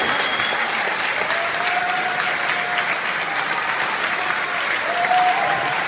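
Audience applauding steadily after an orchestral performance, with a few drawn-out calls of cheering over the clapping.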